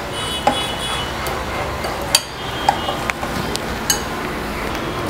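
Metal spoon stirring thick oats and gram-flour batter in a glass bowl: a soft, steady wet scraping, with the spoon clinking against the glass several times.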